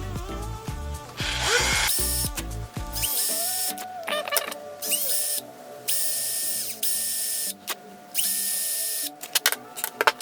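Compressed air hissing from an air compressor's nozzle in several short blasts, each about a second long, used to push a chocolate bar out of a 3D-printed mold. Background music plays under it.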